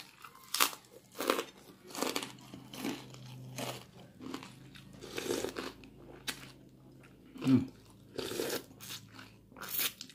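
A person chewing a mouthful of crunchy kerupuk mie (fried noodle crackers) dipped in asinan sauce, with a crisp crunch about every three-quarters of a second.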